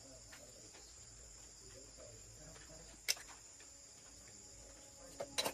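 Faint steady high chirring of insects, with one sharp click about three seconds in and a quick run of clicks near the end.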